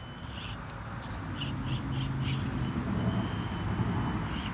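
A bird calling in a quick series of short calls through the first half, over a low rumble that grows louder in the second half.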